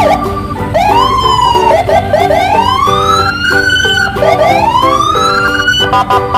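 Police car siren wailing in slow rising and falling sweeps, over background music.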